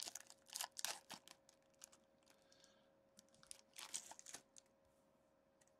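Foil wrapper of a sports card pack crinkling and crackling as it is torn open and the cards are pulled out by hand. A cluster of crackles comes in the first second and a half and another about four seconds in.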